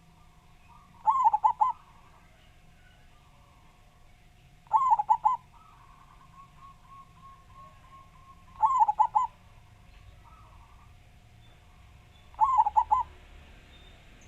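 Zebra dove (perkutut) cooing: four loud phrases about every four seconds, each a quick run of three or four rolling notes. Softer cooing from other doves runs between the phrases.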